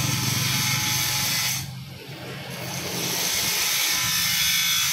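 A motor-driven power tool whirring steadily with a high hiss over a low hum. It stops abruptly about a second and a half in and starts again about a second later.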